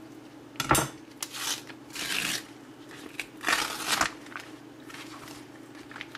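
Clear plastic wrapping being cut and peeled off a ham, crinkling in several short rustling bursts, with a sharp knock about a second in.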